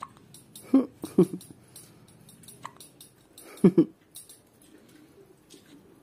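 Newborn baby hiccuping: short, sharp hics, two about a second in and two more in quick succession near the four-second mark.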